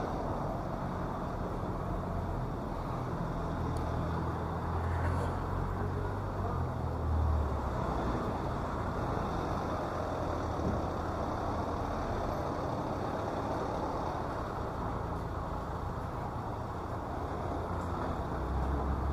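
City street traffic: motor vehicles running and passing, with a steady low engine rumble that rises and falls.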